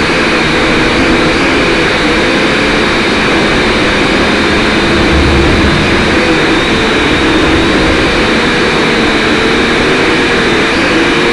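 Small drone's electric motors and propellers running in flight: a loud, steady buzzing whine whose pitch wavers slightly as the throttle changes.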